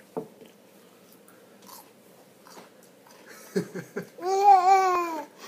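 A toddler's voice: a few quick breathy sounds, then about four seconds in one loud, drawn-out vocal squeal that wavers slightly in pitch and lasts about a second.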